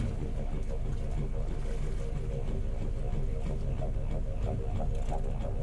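Small boat at sea with its outboard motor idling: a steady low rumble and hum mixed with wind and water noise.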